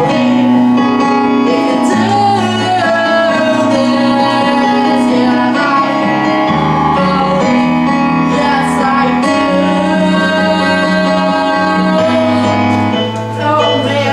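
A woman singing an improvised show tune over live instrumental accompaniment, the chords changing every couple of seconds.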